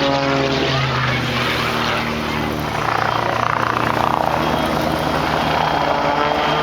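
Propeller race plane's piston engine flying past, its pitch falling as it goes by in the first moment, then a steady pulsing engine and propeller drone; near the end the pitch rises again as another pass approaches.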